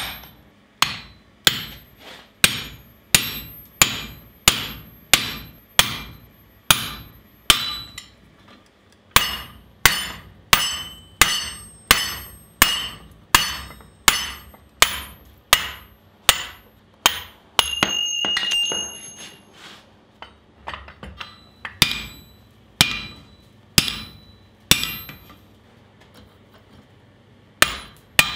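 Hammer blows landing one after another, about one and a half a second, on a handled slitting tool and then a drift held in red-hot steel on the anvil, opening the eye of a pickaxe. Each blow rings sharply, metallic. There are short breaks in the hammering about 8 s in and near the end, and a brief scraping, ringing sound about 18 s in.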